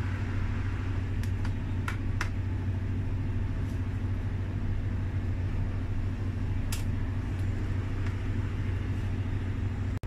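Steady low hum of a motor or machine, with a few light clicks of a spoon against a stainless steel tray.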